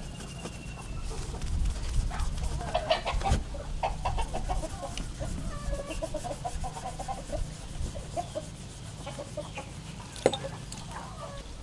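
Chickens clucking, a run of short pitched clucks strongest in the middle stretch, with a few sharp clicks, one about three seconds in and one near the end.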